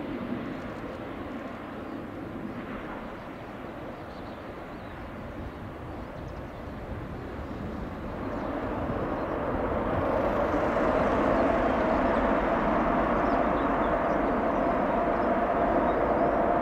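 Distant jet engine roar of an Airbus A380 during its landing rollout, a steady rumble with a faint held tone. It swells louder about eight to ten seconds in and then holds.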